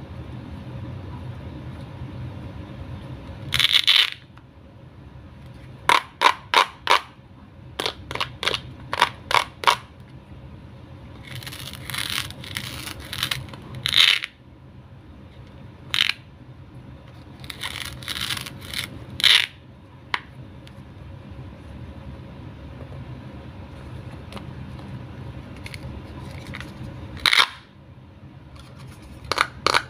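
Hard plastic toy fruit handled on a wooden table: sharp clicks and taps of the plastic pieces, with scratchy tearing bursts as the Velcro-joined halves of a toy pineapple and a bunch of grapes are pulled apart.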